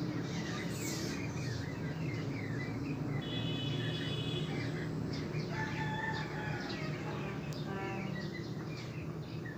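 Birds chirping repeatedly, with a few longer pitched calls in the middle, over a steady low hum.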